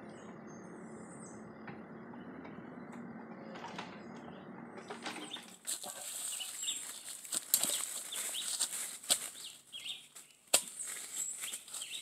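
A Bobcat mini excavator's diesel engine running steadily at a distance, with a brief bird chirp early on. About five seconds in, this gives way to close rustling and sharp crackles in dry leaves and twigs.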